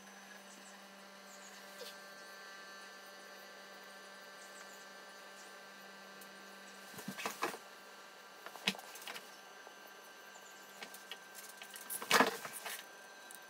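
A low steady hum that stops about seven seconds in, and a few short handling noises on a wooden tabletop: a rustle about seven seconds in, a click near nine seconds, and a louder scrape around twelve seconds in. These come from the paper assembly sheet and the small plastic model-rifle parts being moved.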